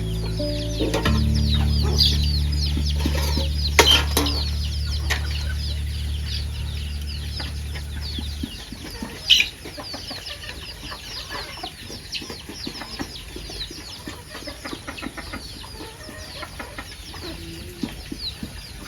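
Background music with sustained low chords that stops about eight seconds in, over a steady chorus of short, high, falling bird chirps.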